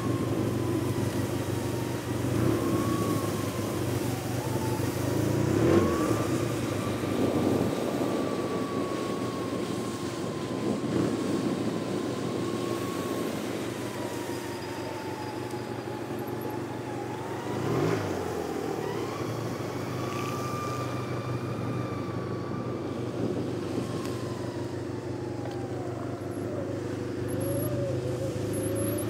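Ski-Doo snowmobile engine running steadily under way, its whine drifting gently up and down in pitch with the throttle. A single knock about two-thirds of the way through.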